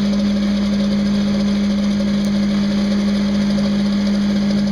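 Small maintenance vehicle's engine running at a steady speed, a loud, even hum.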